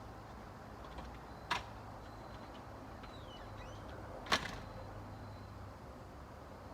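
Two short sharp knocks, about three seconds apart, the second the louder, over a faint steady low hum.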